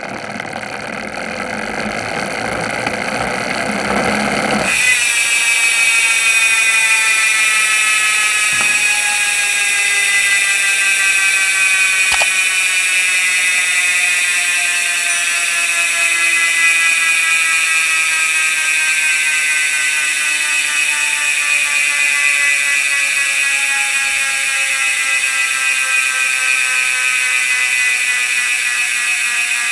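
Koozer XM490 Pro rear freehub. For the first five seconds a rougher noise grows louder, then the hub gives a loud, continuous high-pitched buzz from its ratchet clicking as the wheel freewheels. The buzz falls slowly in pitch as the wheel coasts down.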